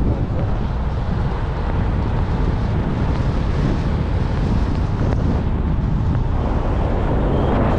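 Wind buffeting the microphone: a steady, loud low rumble with a hiss above it.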